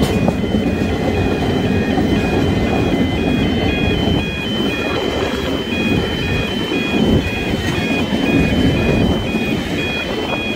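Freight wagons of a steel train rolling past, their wheels rumbling steadily on the rails. Over the rumble, the level crossing's electronic warning alarm keeps ringing in a steady pattern that alternates between two high tones.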